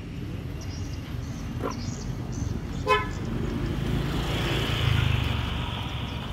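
Street traffic: a short vehicle horn beep about three seconds in, then a motor scooter's engine growing louder as it comes close, loudest about five seconds in, then easing off.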